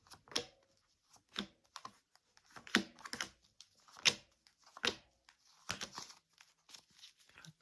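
Tarot cards being handled: a string of sharp, irregular snaps and slaps of card stock as cards are pulled from the deck and laid down.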